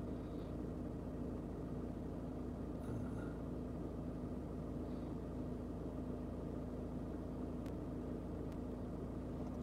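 Steady low hum inside a van cabin, with a faint steady tone through it.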